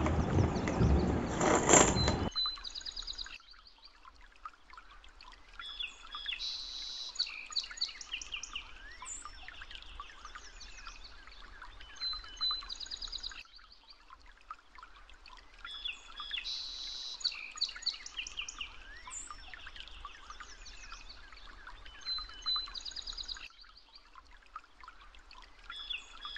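Loud handling noise from the plastic vegetable chopper for about the first two seconds, then a quiet recording of songbirds chirping and twittering that repeats about every ten seconds, as a background loop.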